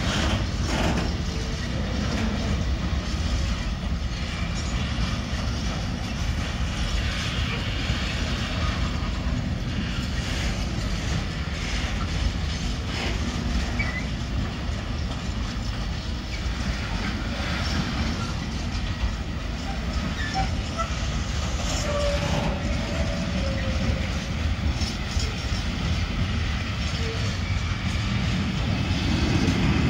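Container freight train passing at close range: loaded flat wagons rolling by with a steady rumble of wheels on rail.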